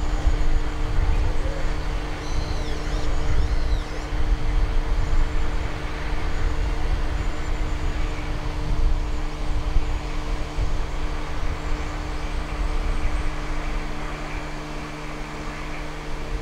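Machinery running with a steady, even hum over an uneven low rumble.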